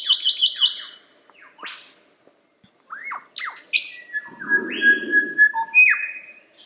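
A lyrebird singing a varied song. It opens with a quick run of high repeated notes, then gives falling and rising whistled sweeps. In the second half come held whistles over a harsh, rasping lower sound.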